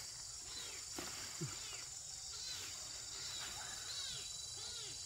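Young poultry peeping repeatedly, each call rising and falling in pitch, over a steady high drone of insects.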